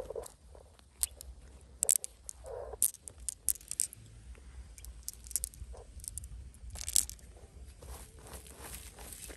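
Irregular sharp clicks and short crunching scrapes, a few a second at times, over a low steady rumble.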